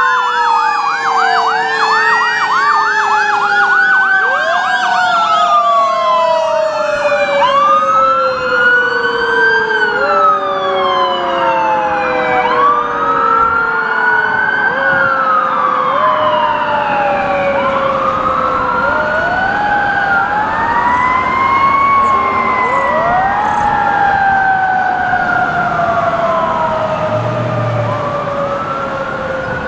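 Several emergency-vehicle sirens from passing fire engines and police cars sounding at once, overlapping slow rising-and-falling wails. A fast warbling yelp runs through the first few seconds, and one long tone falls slowly in pitch beneath the others.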